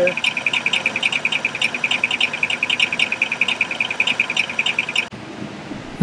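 Toyota 3.4 L V6 running at idle in gear with the park brake set, the knock from its cracked flex plate almost gone. A rapid, even high ticking, about eight a second, runs over the engine noise. Both cut off about five seconds in.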